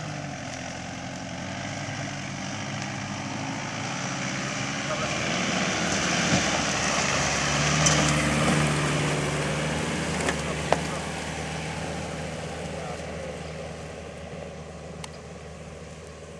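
Mitsubishi Pajero SUV's engine working under load as it climbs a steep grassy slope off-road, growing louder to a peak midway and then fading as the vehicle pulls up and away. A few sharp knocks come through in the middle.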